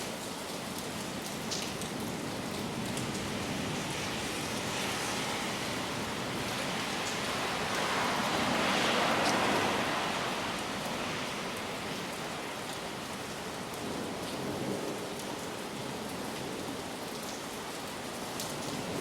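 Heavy rain falling steadily, with scattered sharper drop ticks, swelling louder for a couple of seconds midway through.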